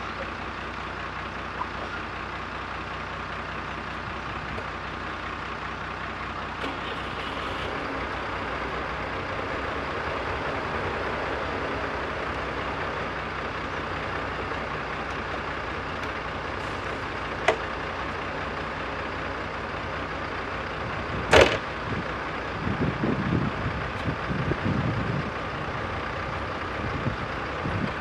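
JCB backhoe loader's diesel engine running steadily at work. About 21 seconds in comes a single sharp, loud knock, followed by a few seconds of uneven clattering.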